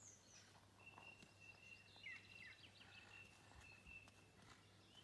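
Near silence outdoors with faint distant bird sounds: a thin, steady high note held for about three seconds, with a few short chirps about two seconds in.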